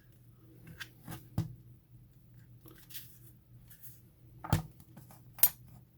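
Scattered clicks and knocks of a plastic tire inflator's casing being handled and pried at, about half a dozen short sounds with the sharpest two near the end.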